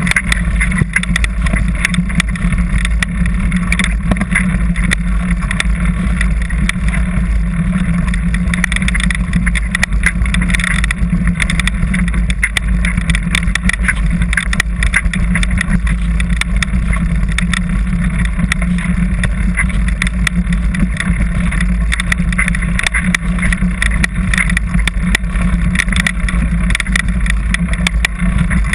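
Steady wind rumble and vibration on a camera mounted on a mountain bike riding rough singletrack, with frequent small knocks and rattles from the bumps in the trail.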